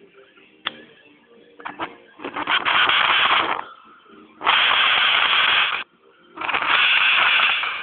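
HHO (oxyhydrogen) torch flame hissing in three bursts of about a second and a half each, with a few sharp clicks before the first.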